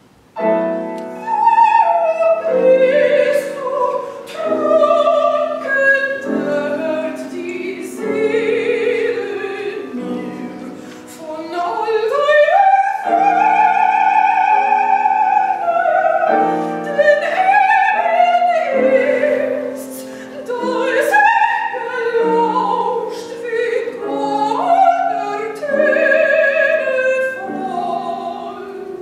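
A woman singing in classical operatic style with vibrato, accompanied on a grand piano, starting suddenly about half a second in.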